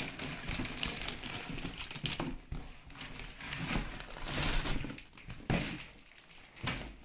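Packaging crinkling and rustling, with a few sharp knocks, as the juicer mixer grinder is lifted out of its box.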